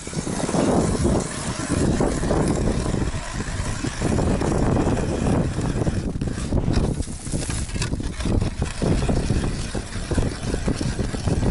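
Wind buffeting the microphone in irregular gusts, the loudest sound, while a hand ice auger is turned through lake ice.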